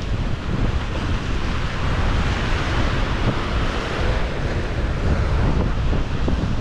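Surf breaking and washing over rocky sea ledges, with wind buffeting the microphone as a heavy low rumble. The surf swells louder about two seconds in.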